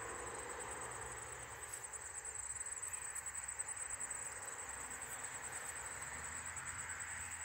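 Insects trilling steadily at a high pitch over faint outdoor ambience.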